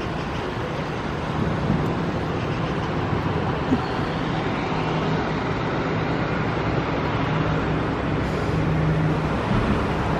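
Steady rumble of road traffic with a faint low hum running through it.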